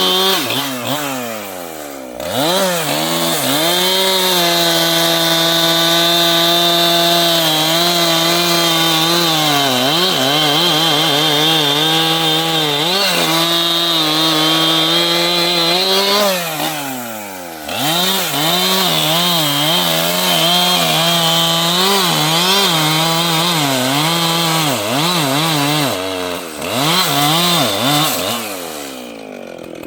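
Large two-stroke chainsaw at high revs cutting wood, its pitch wavering and dipping as it loads up in the cut. The throttle is let off and the engine falls away about two seconds in, around seventeen seconds in and around twenty-seven seconds in, revving back up each time, and it drops off again at the very end.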